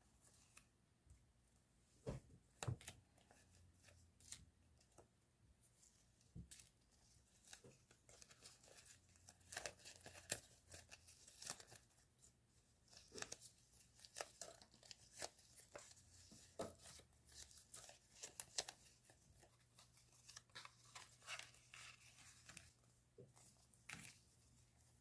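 Paper and plastic stationery packaging being handled and torn open: a string of short, crisp rustles, crinkles and tearing sounds, loudest a couple of seconds in and again around ten seconds.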